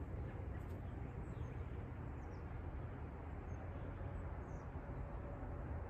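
Quiet outdoor background: a low, steady rumble of wind on the microphone, with a few faint bird chirps.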